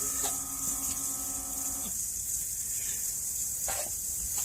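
The small electric air pump of a smoke leak tester hums steadily, then cuts off about two seconds in, leaving a faint hiss and a few light clicks.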